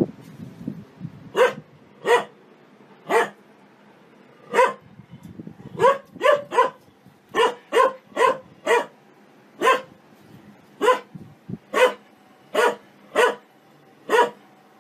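A dog barking over and over at laundry tumbling in a front-loading washing machine: short, sharp single barks, sometimes in quick runs of three or four, about one or two a second.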